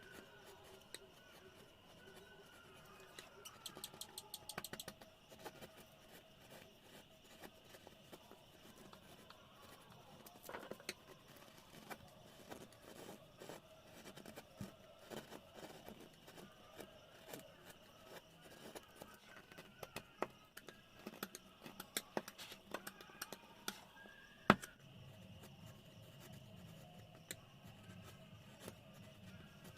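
Faint, scattered taps and clicks of hand carving tools working wood, with a quick run of clicks about four seconds in and one sharp knock near the end.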